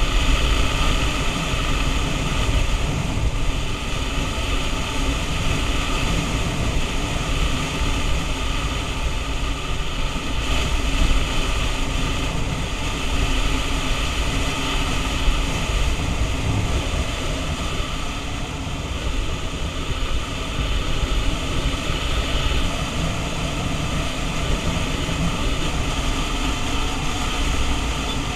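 Steady wind rush buffeting a helmet-mounted camera's microphone while riding a motor scooter at speed, with the scooter's engine running evenly underneath.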